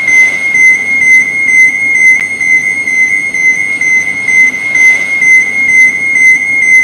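Electronic overload warning alarm: one continuous high-pitched beep tone that pulses in loudness about twice a second.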